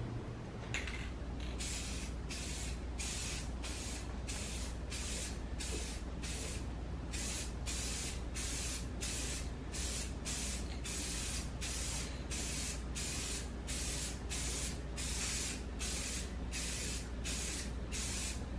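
Aerosol can of Rust-Oleum Painter's Touch 2X claret wine spray paint hissing in quick short bursts, about three every two seconds, laying a red coat over a black base coat. A click comes about a second in, just before the bursts begin, and a steady low hum runs underneath.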